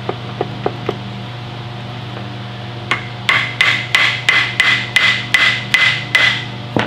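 A few light clicks, then from about three seconds in roughly ten quick ringing hammer taps, about three a second, and one last knock near the end. It is a small hammer driving metal on metal at a stuck manual locking hub in a Dana 60 front axle hub, knocking loose a lockout that won't come out.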